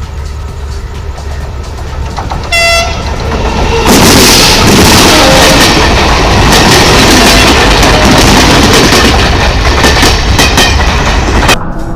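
A train horn sounds one short blast. Then the train passes close by, loud, with wheels clattering over the rail, and the sound cuts off abruptly near the end.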